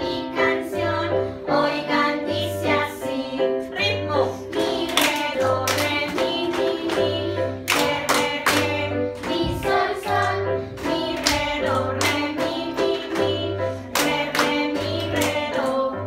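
A group of children singing together along to backing music with a steady beat, clapping their hands in time.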